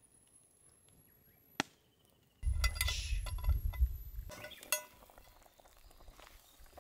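Metal lid lifter clinking against a Dutch oven's metal lid as the lid is hooked and lifted off. There is a single sharp click about a second and a half in. Then comes a stretch of low rumbling handling noise with several ringing metallic clinks, and one more clink at just under five seconds.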